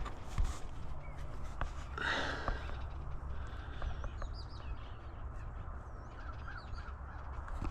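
Small birds chirping and whistling, thin rising and falling calls in the middle stretch, over a steady low wind rumble on the microphone. A brief rustle sounds about two seconds in.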